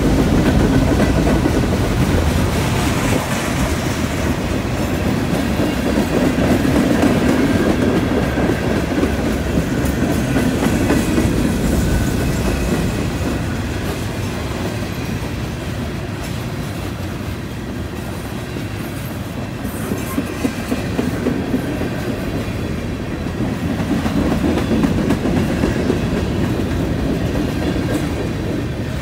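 Freight train cars rolling past at close range: covered hoppers, then tank cars. The wheels rumble and clack over the track in a steady, loud run that swells and eases a little.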